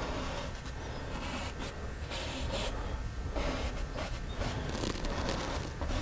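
Faint scratchy dabbing of a small fan brush on an oil-painted canvas, with a soft stroke about every second over a low steady room hum.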